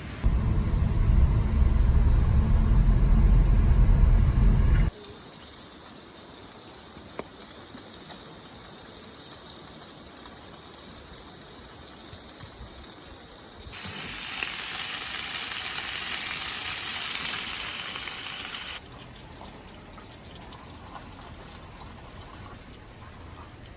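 Heavy rain pouring down, as a steady hiss that changes abruptly at several cuts, loudest and fullest for about five seconds in the second half. The first five seconds are dominated by a loud low rumble.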